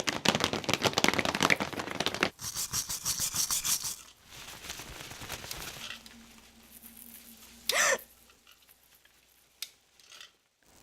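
Hand-made foley sound effects. About two seconds of dense rattling, then a fast high crackle, then softer rustling, and a single short sharp swish a little before the end.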